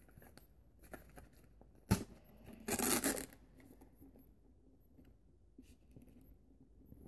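A Pringles can being opened: a sharp click about two seconds in, then a brief tearing noise about three seconds in as the foil seal is pulled, followed by faint rustling and handling.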